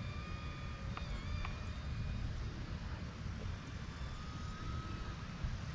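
Thin, high-pitched whine of the small electric motor and propeller of a foam Volantex P-51D Mustang RC plane in flight, wavering in pitch as the throttle and distance change and fading after a couple of seconds. Wind rumbles on the microphone, louder than the motor.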